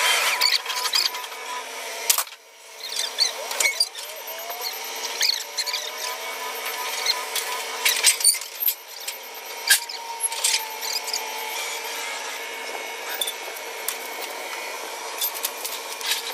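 Forklift working at a flatbed trailer loaded with steel beams: a steady mechanical whine with scattered sharp metal clanks and short squeals.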